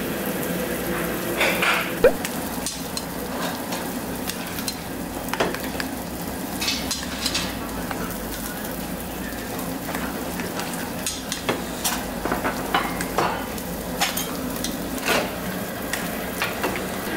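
Pork sizzling steadily on a tabletop barbecue grill, with scattered light clicks and clinks of chopsticks against a steel noodle bowl.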